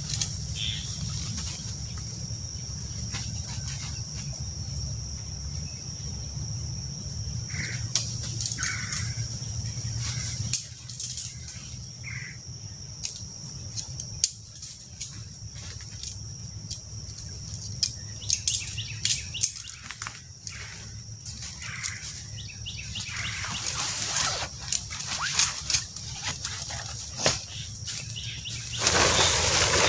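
Nylon tent fabric rustling and crinkling in bursts as a dome tent is pulled down, folded and bagged, with steps on dry leaf litter. A few short bird chirps and a steady high-pitched tone sit behind it; the rustling is loudest near the end.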